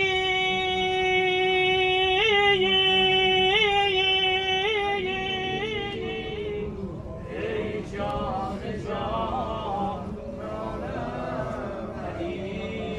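A man chanting an unaccompanied Shia mourning lament: one long held note on "Ali" for about six seconds, broken by quick warbling vocal ornaments, then shorter, more varied sung phrases.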